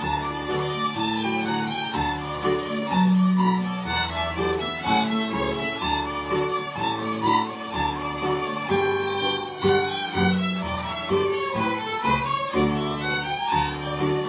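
A group of fiddles playing a tune together, bowing held notes, with low accompanying notes beneath them.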